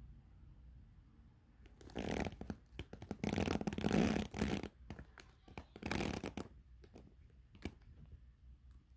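Handling noise: a hand rustling and rubbing as it moves a small plastic lotion tube close to the phone. It comes in several bursts starting about two seconds in and dies down after about six seconds, followed by a few faint clicks.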